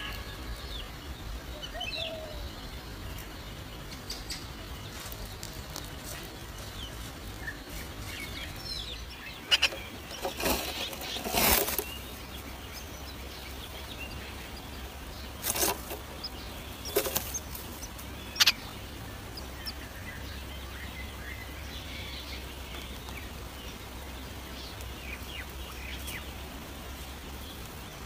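Great tit flapping and scrabbling inside a nest box as it comes and goes: short loud flurries of wing flutters and knocks about ten seconds in and again a few seconds later, over faint high chirps from the nestlings.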